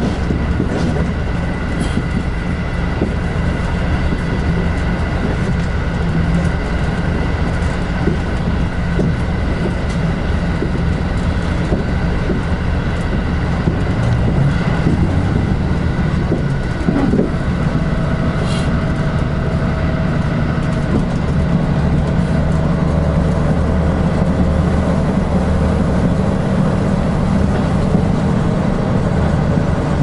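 Running noise from inside a limited express train at speed: a steady rumble of wheels on the rails, with a few faint clicks.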